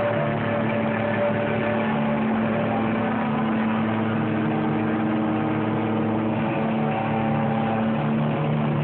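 Live rock band heard from far up in an arena: long, steady low guitar and bass notes held over a dense wash of amplified sound and crowd noise.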